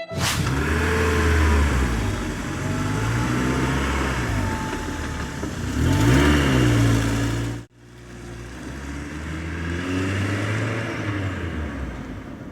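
Truck engine sound revving up and down, with a sudden break about two thirds of the way through before it starts again.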